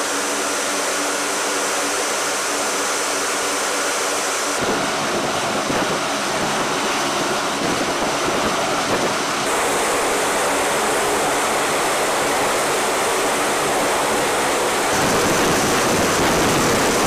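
Steady roar of a KC-130J transport's running turboprop engines heard from its open cargo ramp. The roar changes character abruptly about four and a half, nine and a half and fifteen seconds in.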